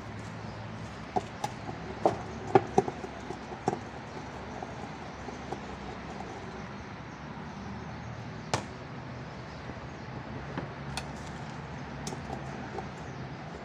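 Scattered clicks and knocks of parts and tools being handled while a twin-tub washing machine is taken apart. There is a quick cluster in the first few seconds and a few single knocks later, over a steady low hum.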